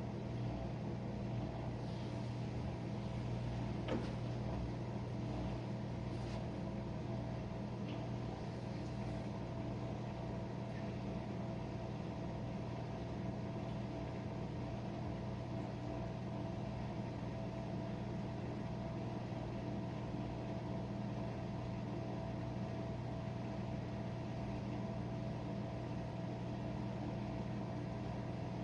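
Jenn-Air dishwasher running in the last minutes of its cycle: a steady motor hum with a few faint clicks in the first few seconds.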